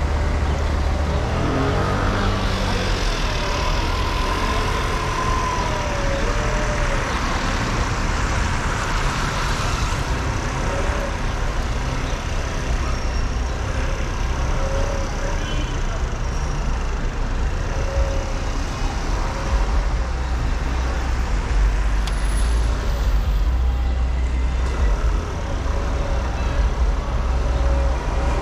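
Slow, congested city traffic on a wet street, heard from a car: a steady low engine and road rumble with an even hiss of tyres and traffic above it, and faint wavering higher tones now and then.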